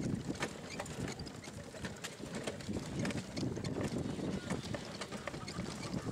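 Rattling and knocking of a vehicle jolting along a rough dirt road: many irregular clicks and knocks over a low rumble.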